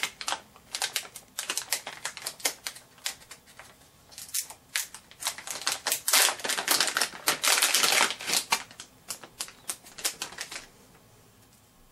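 Crinkling and crackling of a metallized anti-static foil bag being handled and opened: a rapid run of sharp crackles, thickest in the middle, that stops shortly before the end.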